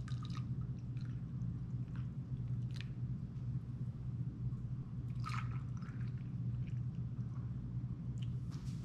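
Warm panna cotta cream mixture being poured from a metal pot into a glass cup, with a few faint splashes and drips spread through, over a steady low hum.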